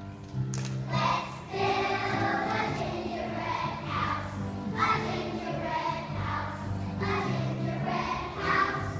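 A choir of young children singing together over a steady instrumental accompaniment; the voices come in about a second in.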